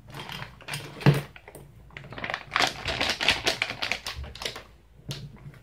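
Crinkling of a silver anti-static plastic bag and small electronic components clicking and clattering onto a cutting mat as the amplifier kit's parts are emptied out. There is a sharp click about a second in, and the densest rattle and crackle comes a little past the middle.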